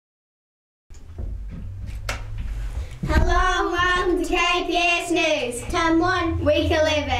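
A moment of dead silence, then low room hum with a single knock, then a child singing a short tune in a small room from about three seconds in.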